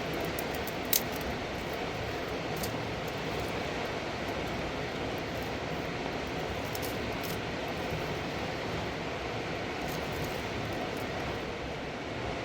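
Fast mountain river rushing steadily, with a few faint high ticks and one sharp click about a second in.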